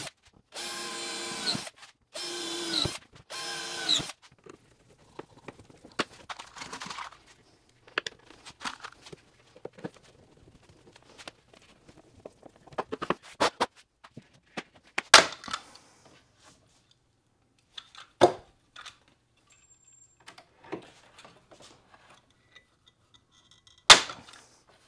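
Power drill run in three short bursts of about a second each, the motor winding down after each one. Then scattered knocks and clatter of plywood and hardware being handled, with three sharp bangs about 15, 18 and 24 seconds in.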